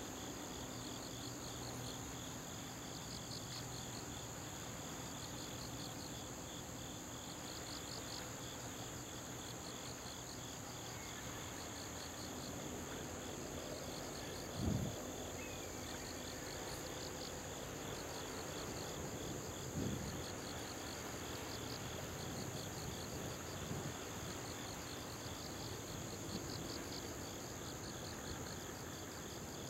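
Insects chirping: groups of rapid high pulses repeating over a steady high-pitched trill, above a steady low hum. Two short dull thumps come about halfway through.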